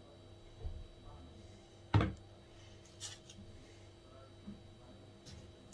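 Quiet kitchen handling sounds: a metal spoon spreading custard on a thin baked puff-pastry cake layer, then a crisp layer being picked up and laid on, with one sharp knock about two seconds in and a few lighter clicks.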